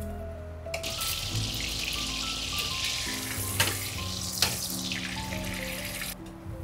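Butter sizzling as it melts and foams in a hot frying pan, starting about a second in and cutting off shortly before the end, with two sharp pops in the middle. Soft background music plays underneath.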